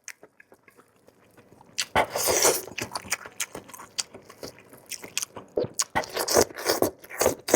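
Close-up eating sounds: biting into and chewing a shrimp-paste-stuffed food, with wet smacking clicks and crunches that start about two seconds in after a brief quiet.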